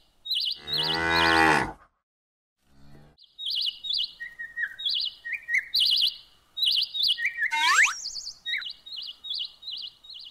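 A cow mooing once, a long call about half a second in, with a short low call near three seconds, over small birds chirping repeatedly in short high bursts. A quick rising whistle comes about three-quarters of the way through.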